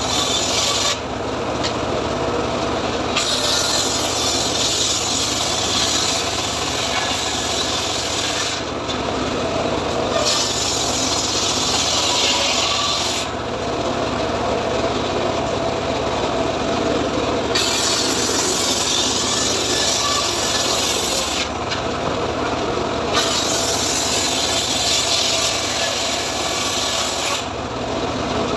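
Homemade circular table saw ripping teak boards lengthwise. There are four long cuts of several seconds each, where a loud high-pitched cutting noise rises over the saw's steady running sound and then drops back to it between boards.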